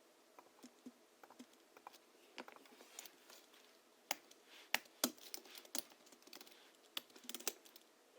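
Typing on a Hansung GHL-5X keyboard, its springs lubricated with Krytox 103 and 107, fitted with 50 g rubber domes. Irregular keystrokes, sparse at first, then quicker runs of clicks with a few louder strokes in the middle and near the end.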